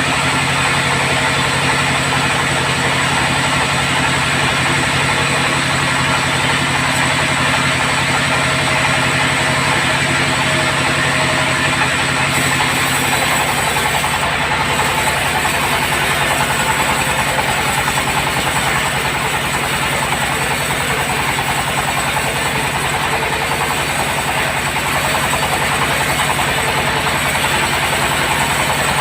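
Sawmill bandsaw running: a steady mechanical drone whose low hum changes about halfway through.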